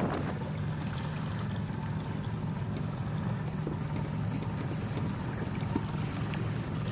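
Small boat's motor running steadily on the river, a low, even hum, with a light wash of water around the hull.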